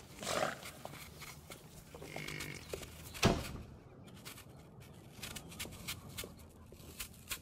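A short animal call about two seconds in, followed about a second later by a single sharp thud, the loudest sound here. Light scattered taps of footsteps follow over a low background hum.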